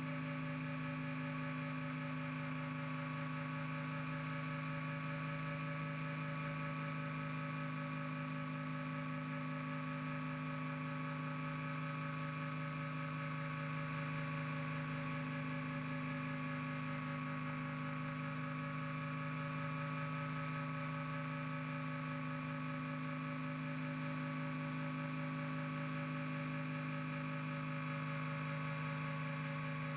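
Cockpit sound of a Hummingbird helicopter in flight: its piston engine and rotor drivetrain give a steady drone made of several held tones, the lowest ones the loudest.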